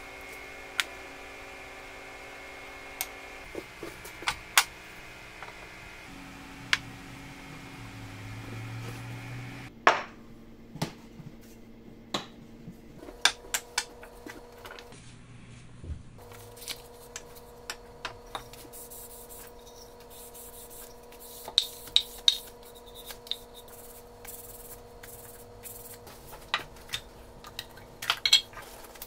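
Wooden plane bodies and parts being picked up and set down on a wooden workbench and a glass-topped scale: scattered sharp knocks, taps and clicks, denser in a few clusters, over a steady background hum.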